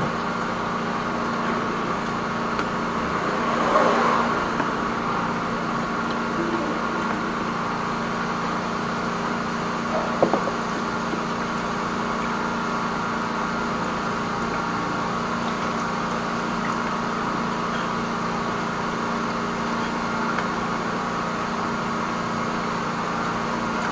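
High-pressure sewer jetter's engine and pump running steadily while the jetting hose works inside a blocked house rainwater drain pipe. Two brief knocks sound about four and ten seconds in.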